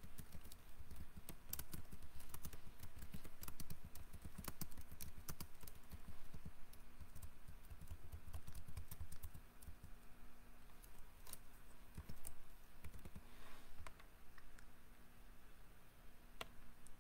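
Typing on a computer keyboard: a run of quick key clicks, busy for the first half and thinning out to scattered keystrokes after about ten seconds.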